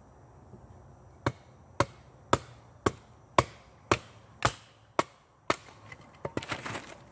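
A hatchet driven down through a stick of firewood by knocking its head with a piece of wood: about nine sharp knocks roughly half a second apart. Near the end comes a quick clatter as the split pieces fall away.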